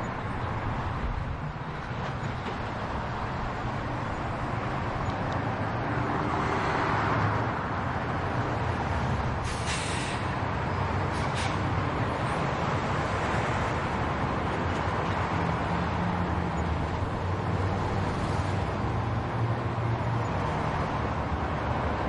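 Road traffic: a steady low engine rumble under continuous road noise, with a vehicle passing about six seconds in and two short hisses, about a second and a half apart, near the middle.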